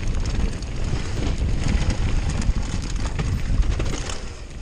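Downhill mountain bike riding over a rough dirt trail: tyres rolling over dirt, stones and dry leaves, with the bike rattling and knocking in many small, irregular hits over the bumps, and a low wind rumble on the microphone.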